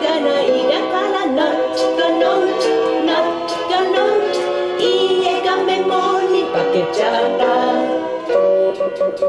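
Music: a phonics song, with a voice singing over a light accompaniment of plucked notes.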